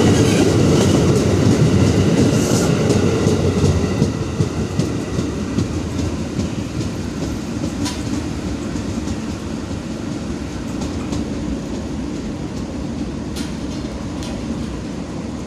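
KRL Commuter Line electric train running past close by on the adjacent track, a loud rumble that fades after about four seconds as the train pulls away, leaving a lower steady rumble with a few sharp clicks.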